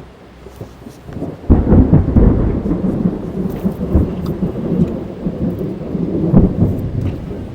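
Thunderstorm heard from inside a car: rain on the car, then a thunderclap about a second and a half in that rolls on as a long, deep rumble.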